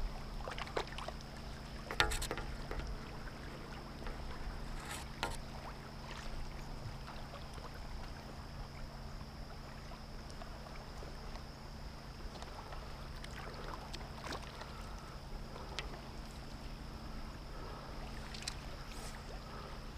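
Steady rush of river current around a wading angler, with a few short splashes and knocks scattered through it.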